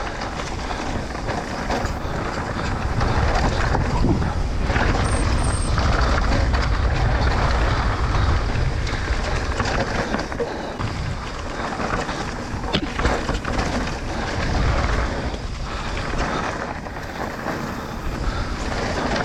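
Trek Rail electric mountain bike riding down a dirt trail: wind buffeting the microphone over the rumble of tyres on dirt and rock, with short knocks and rattles from the bike over bumps.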